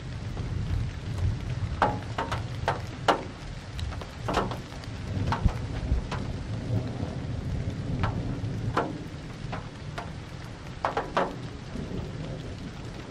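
Thunder rumbling low and continuously from a thundercloud, swelling and easing, with scattered raindrops ticking sharply close to the microphone.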